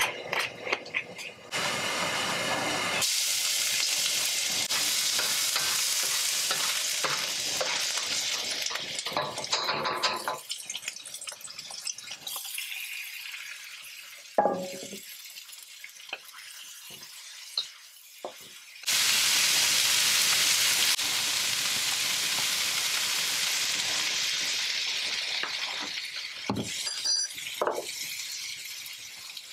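Garlic, then tomato wedges, sizzling in hot oil in a wok, stirred with a wooden spatula. The sizzle starts suddenly twice, loud each time and dying down over several seconds, with quieter stirring between and a few knocks near the end.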